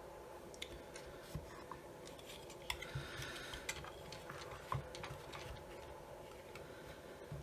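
Scattered light clicks and taps of small parts and tools being handled at a workbench, over a steady faint hum.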